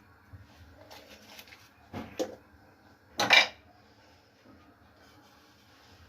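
Cookware clattering: light clinks about a second in, two sharp knocks about two seconds in, then a louder metal clank just after three seconds, as utensils are handled against a cooking pot.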